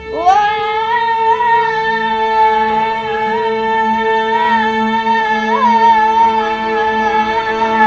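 Music from the headphones' sound-experiment audio clip: a single high melody line slides up into a long held note that wavers slightly, over a steady low drone.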